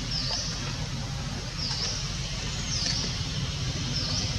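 A bird repeating a short, high call that dips and rises, about once every second and a quarter, over a steady low rumble.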